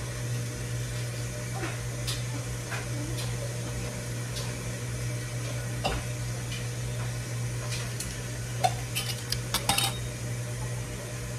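Glass jars and a canning funnel being handled: a few scattered knocks, then a quick run of glassy clinks near the end, over a steady low hum.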